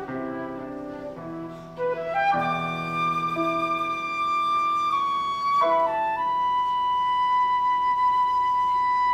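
Flute playing the closing phrase of a piece over lower accompanying notes, ending on a long held high note that stops cleanly, the final note of the piece.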